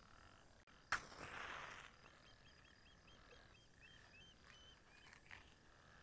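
Faint night chorus of frogs and insects calling steadily, with a run of short repeated chirps in the middle. About a second in comes a sharp click followed by a brief hiss.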